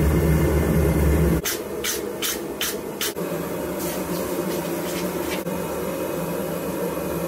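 A gas forge burner runs with a steady low roar. After a cut, the red-hot mild-steel piece goes into a quench bucket: a handful of sharp sputters, then steady hissing as it cools.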